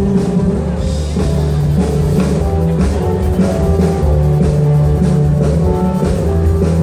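Rock band playing live on drum kit, bass and electric guitar, an instrumental passage during a sound check.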